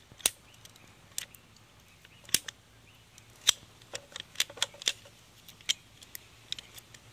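Hand cutters biting into a 1/4-inch high-pressure jetter hose: a scattering of sharp clicks and crunches, about a dozen, coming irregularly as the jaws work through the hose.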